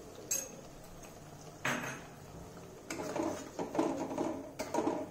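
Metal spatula knocking and scraping against a metal kadhai while masala is stirred in the pan. There is a single knock, then a scrape a little later, then a run of quick stirring scrapes from about three seconds in.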